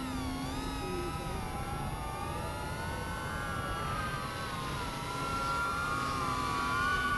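Brushless motors and propellers of a 5-inch FPV quadcopter whining in flight under the load of a 12,000 mAh battery, the pitch wavering up and down with throttle changes, over steady wind noise.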